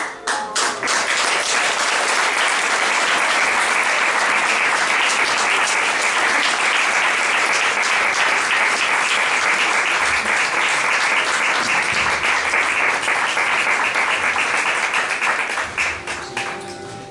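Audience applauding: a dense, steady clapping that starts all at once and dies away near the end.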